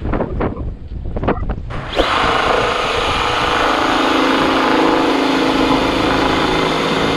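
Wind and sea noise on the microphone, then about two seconds in a cordless drill starts and runs steadily, drilling new screw holes into the metal tube of a sailboat's genoa pole.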